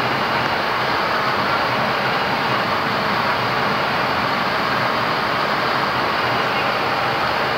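Steady rushing noise on the flight deck of a Boeing 737 MAX taxiing after landing: the engines at idle with the cockpit air-conditioning, even and unbroken.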